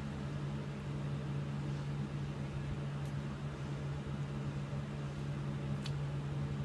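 Steady low motor hum with an even hiss from a running room appliance, with a couple of faint clicks.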